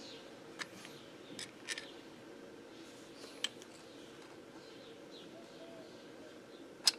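Small steel hand tools, a ratchet handle and a punch, clicking and clinking as they are handled, a few scattered sharp clicks with the sharpest near the end, over a low steady hum.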